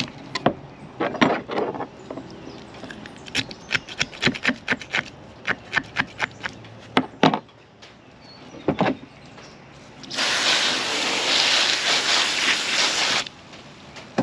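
Fillet knife cutting and scraping through a bluefish on a plastic cutting board: a quick run of sharp scrapes and clicks that stops about seven seconds in. About ten seconds in, a steady rushing hiss starts abruptly and cuts off three seconds later.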